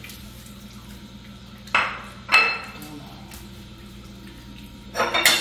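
A few short clinks of cat food bowls, about two seconds in and again near the end, one of them ringing briefly, over a faint steady low hum.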